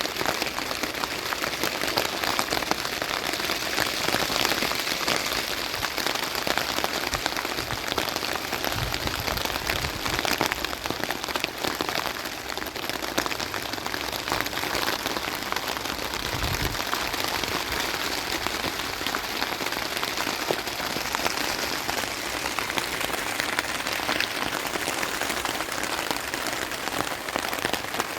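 Steady rain falling on a surface, a dense, even patter of drops, with a couple of brief low rumbles about nine and sixteen seconds in.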